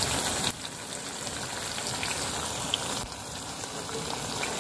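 Hot oil sizzling steadily with scattered small crackles as besan-battered ajwain-leaf bhajis deep-fry in a kadhai.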